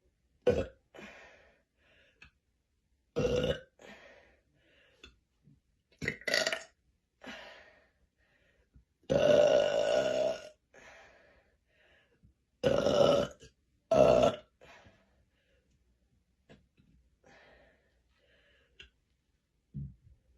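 A woman burping loudly again and again: about six loud burps with fainter ones in between. The longest and loudest comes about nine seconds in and lasts over a second.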